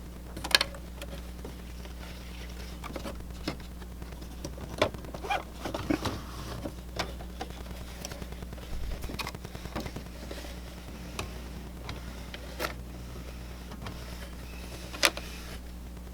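Scattered light clicks and knocks of the printer's plastic parts being handled, over a steady low hum.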